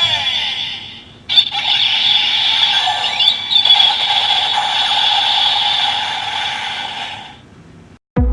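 Electronic transformation sound effect from the small speaker of Bandai's DX Kamen Rider Build toy with the Kaizoku Ressha Full Bottles: a short burst, a brief break about a second in, then a long harsh sustained sound that fades out near the end.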